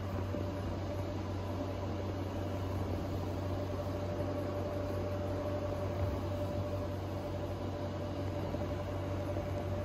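Steady background hum and hiss, like a ventilation or air-handling system running, with a faint steady whine above the hum.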